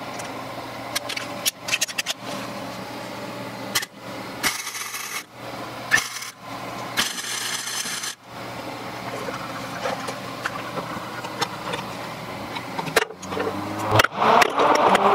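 Wire-feed welder laying two short tack welds, a crackling sizzle that starts and stops abruptly, once for under a second and then for about a second, over a steady low hum, with light clinks of small steel pieces being handled between them.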